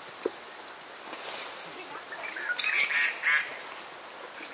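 A bird calling: a short run of loud calls about two and a half to three and a half seconds in, after a single knock near the start.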